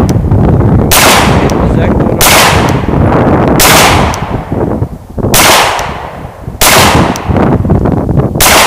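Glock pistol firing six shots at uneven intervals of about one to two seconds, each shot followed by a long echo trailing off.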